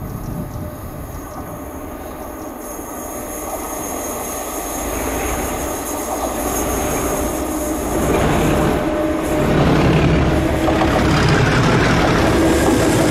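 Diesel train approaching, its engine and wheels growing steadily louder, with a heavier engine note building over the last few seconds.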